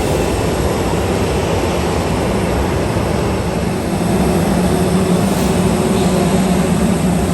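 Loud steady jet airliner engine noise with a low hum.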